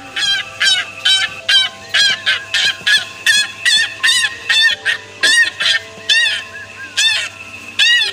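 Geese honking: a steady run of short, loud honks, about two a second.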